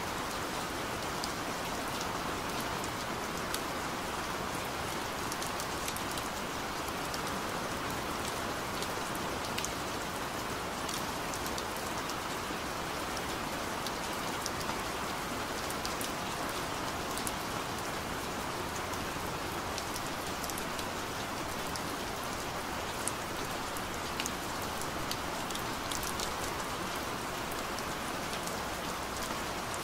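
Steady rain: an even hiss with scattered sharp drop ticks.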